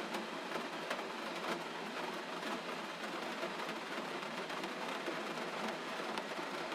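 Steady gentle rain: an even hiss with scattered, irregular ticks of individual drops.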